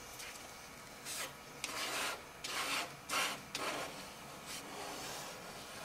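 A putty knife scraping and smearing two-part epoxy paste across a sheet of paper to mix it. About four scraping strokes come between one and three and a half seconds in, then fainter rubbing.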